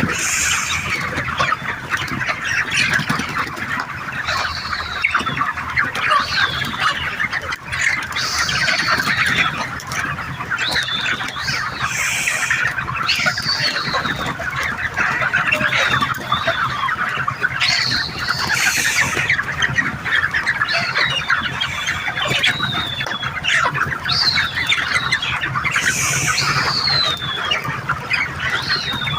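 A large flock of Golden Misri chickens in a poultry shed, many birds clucking and calling at once in a steady, dense din. High, short falling peeps cut through it again and again.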